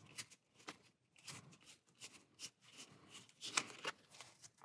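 Game cards being handled and flipped through by hand: faint, irregular soft snaps and rustles of card stock sliding against card stock, a little louder about three and a half seconds in.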